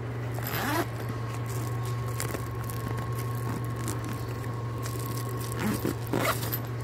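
Rustling and light scraping of a phone being handled and moved about against clothing, over a steady low hum, with a faint steady tone through the middle seconds.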